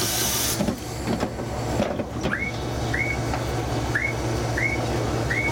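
KiHa 120 diesel railcar's engine idling with an even low pulsing while the train stands at a platform. A hiss of air dies away about half a second in. From about two seconds in, a short rising chirp repeats roughly every 0.8 seconds.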